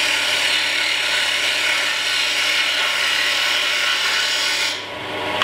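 Mini wood lathe running with a turning tool cutting the spinning wood: a steady, rough hissing cut over the motor's low hum, which eases off near the end.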